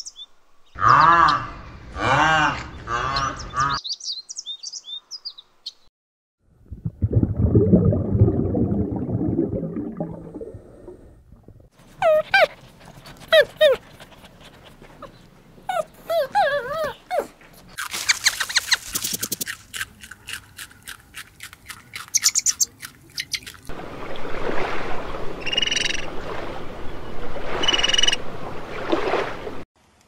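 A run of different animal calls one after another, each lasting a few seconds, with short pauses between them: pitched repeated cries, a low rough stretch, squeaky chirps, a fast rattle, and more cries near the end.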